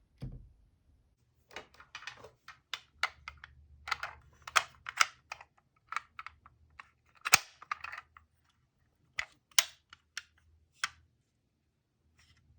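Irregular light clicks and clacks of small hard toy cars being handled, with a sharper knock about seven seconds in.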